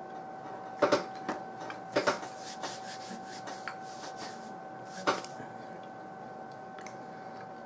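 Someone chewing a bite of a soft-baked cookie: a few short, sharp mouth noises about a second in, around two seconds and once near five seconds, over a faint steady tone.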